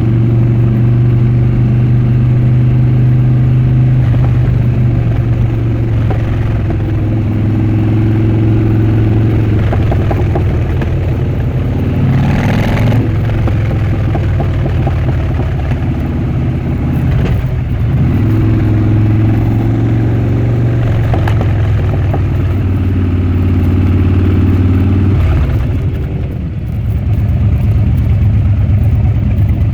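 Harley-Davidson Dyna Switchback's V-twin engine and exhaust running loudly under way, the engine note shifting up and down a few times as the throttle changes. A short rush of noise comes about twelve seconds in, and about 25 seconds in the note drops as the throttle closes, then picks up again.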